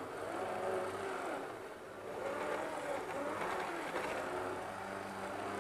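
Model Pendolino electric train running on the track: a steady motor hum and a whirr that wavers in pitch. The wheels are spinning at a high rate, which the owner blames on the motor sitting close to the wheels.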